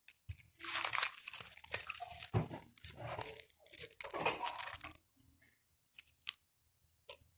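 Small folded paper pieces rustling and crinkling as a hand scoops them up off a table and handles them in the palm, in uneven bursts. It thins out to a few light clicks near the end.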